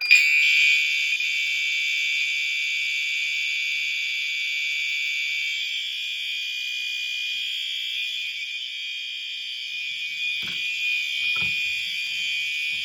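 Two fire alarm horns, a Commander 3 and a System Sensor SpectrAlert Advance, both set to high volume continuous, sounding together in one loud, steady, unbroken blare just after a BG-12 pull station is pulled. Two dull thumps come near the end.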